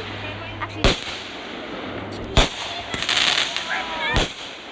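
Fireworks going off: three sharp bangs spaced about one and a half to two seconds apart, with a stretch of crackling between the second and third.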